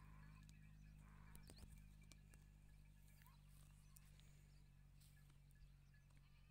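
Near silence: faint outdoor ambience with a steady low hum and a few faint clicks about a second and a half in.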